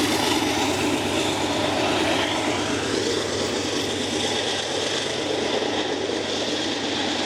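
Loud, steady rushing rumble of a passing vehicle, easing off slightly toward the end.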